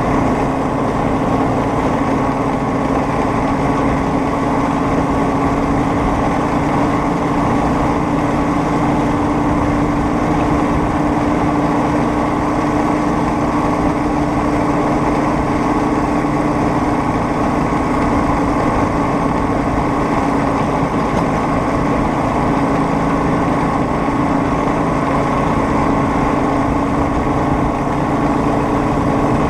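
Homemade rail speeder under way on the track, its small engine running steadily at an even pitch.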